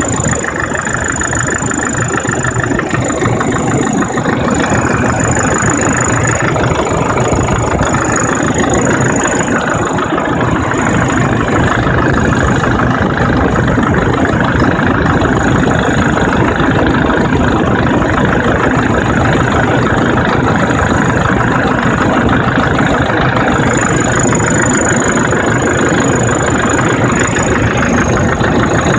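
SsangYong Kyron diesel engine idling hot, with a steady high-pitched whistle over the engine noise that fades out briefly twice. The whistle comes only on a hot engine at idle, and its cause is unknown to the owner.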